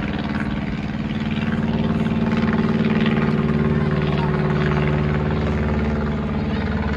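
Single-engine propeller plane towing a banner, its piston engine and propeller droning steadily as it flies past. It grows louder about two seconds in, and its pitch sinks a little as it moves away.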